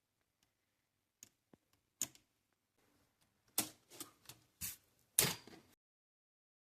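Plastic clicks and snaps from a K'nex rubber-band gun's mechanism being worked: a few scattered clicks, then a quicker run of louder clacks, the loudest near the end, before the sound cuts off abruptly.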